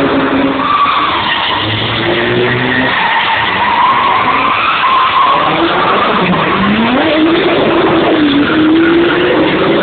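Drift cars sliding through a corner, their engines held at high revs over a steady rush of skidding tyres. About six seconds in, one engine revs up sharply as a car comes close.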